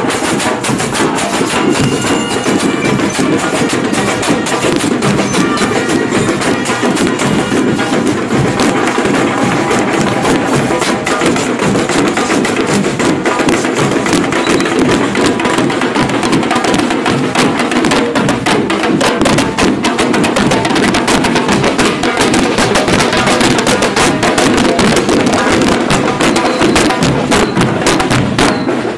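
Marching band drum line playing: bass drums and snare drums beating a fast, driving rhythm of close-packed strikes, with sharp stick clicks.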